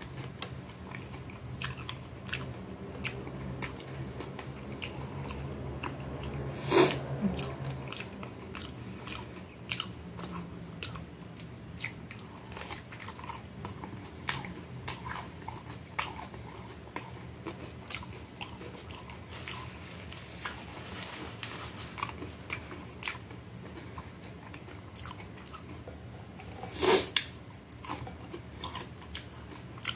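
Chewing and biting into a hot dog topped with crunchy shoestring potato sticks: a steady run of small crisp crunches, with two louder crunches about seven seconds in and near the end.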